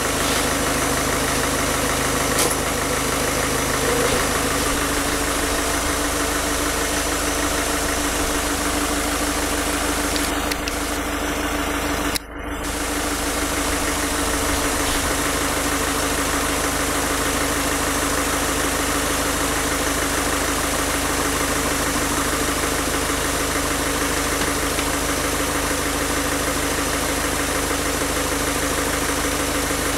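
Peugeot 1.6 HDi four-cylinder turbodiesel idling steadily while injector-cleaning fluid is drawn in through the intake. It runs evenly with no injector tick-tick left, a sign the injectors have come clean. The sound briefly drops out about twelve seconds in.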